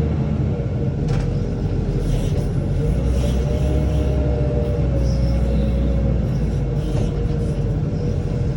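Steady low rumble of a running motor vehicle engine, with a faint constant hum above it and no change in speed.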